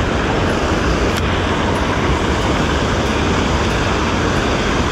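Steady rush of water pouring over a concrete spillway weir and churning in the pool below.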